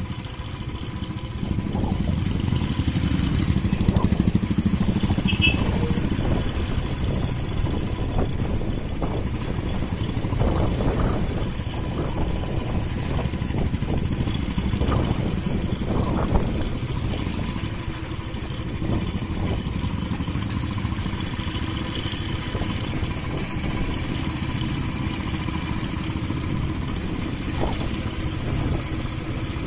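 Motorcycle engines running steadily at low road speed, with motorcycles riding together through street traffic.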